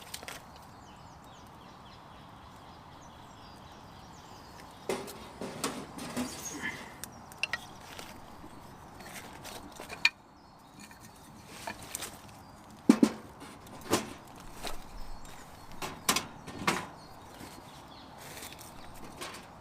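Dead wood being processed by hand for a camp stove: scattered knocks and cracks, the loudest about two-thirds of the way in, over a steady outdoor hiss.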